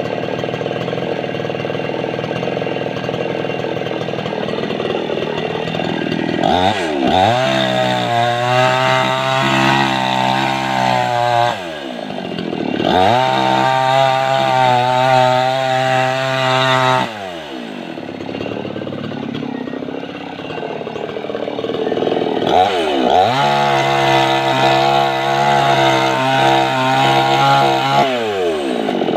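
Mini chainsaw cutting through mango wood. It runs steadily at first, then speeds up to a high whine three times, each time holding it for several seconds before dropping back.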